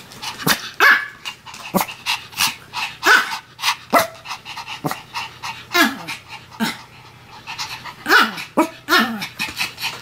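Pomeranian barking in short, sharp yaps, each one dropping in pitch, with a quick run of several barks near the end.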